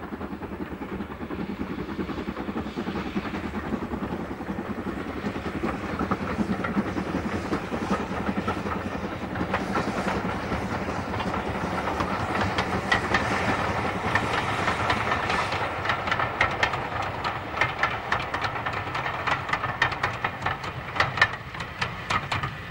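GWR 5600-class 0-6-2 tank engine No. 6619 working a passenger train past, growing louder as it approaches. From about halfway through, the coaches' wheels click steadily over the rail joints as they roll by.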